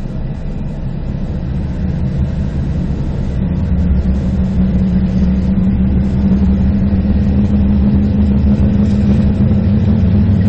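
Norfolk Southern GE diesel locomotives passing, their engines running with a steady low drone that grows gradually louder as the units come by. A steady low hum sets in a few seconds in and holds.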